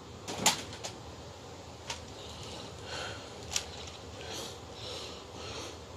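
Handling noise: a few sharp clicks and soft rustles, most likely the Gaburevolver toys being picked up and moved.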